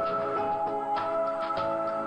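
Instrumental opening theme music of a TV drama: held notes with a quick run of lighter notes over them.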